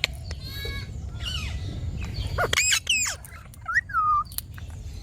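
Ringneck parrot calling: a string of short squawks and whistled glides, the loudest and highest about two and a half seconds in, with sharp clicks in between.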